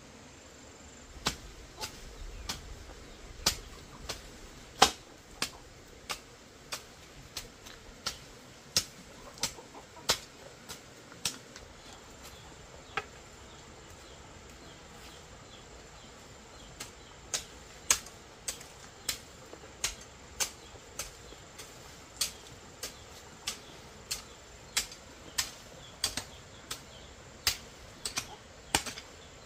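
A hoe chopping into soil and weeds in steady strokes, a little under two a second, with a pause of a few seconds midway.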